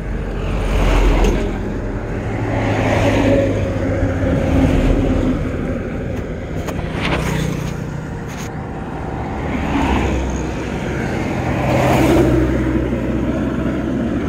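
Wind rushing and buffeting on the microphone of a camera riding on a moving electric scooter, swelling and easing every couple of seconds, with cloth brushing over the microphone and a couple of sharp knocks about halfway through.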